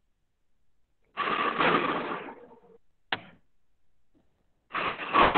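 Two bursts of clattering noise, each about a second long, one about a second in and one near the end, with a single sharp click between them. The sound comes through a video-call audio line.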